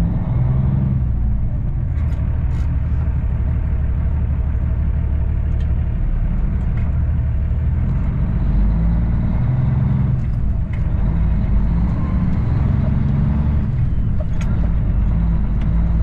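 The Cummins ISX diesel of a 2008 Kenworth W900L, heard inside the cab as a steady low rumble while the truck rolls slowly at low revs.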